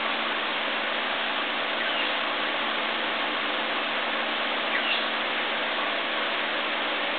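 Steady hiss with a constant low hum, and a few faint, short bird chirps, about two seconds and five seconds in.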